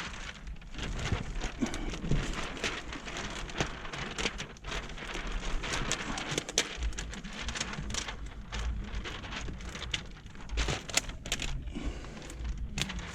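Plastic window tint film and its liner being handled, crackling and rustling with irregular small snaps.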